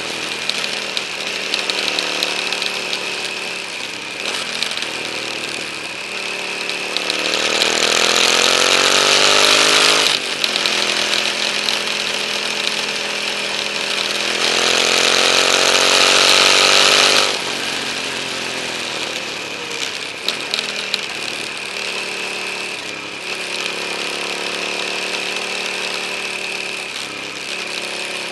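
KTM 950 Adventure's V-twin engine running under load. Twice, about a third and about two thirds of the way through, it pulls hard with its pitch climbing for about three seconds before dropping suddenly as the throttle is rolled off or the next gear is taken. A steady rush of wind over the bike-mounted microphone runs under it.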